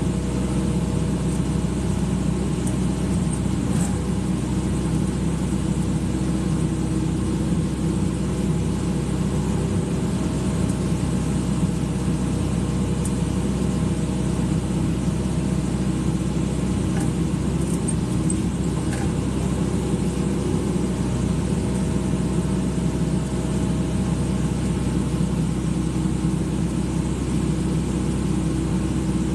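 Excavator's diesel engine running steadily with an even low hum.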